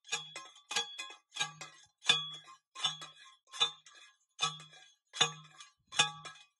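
Hand-held ground rod driver slammed down again and again onto the top of a 9-to-10-foot ground rod, driving it into the ground: a steady series of ringing metallic clanks, about one every three-quarters of a second.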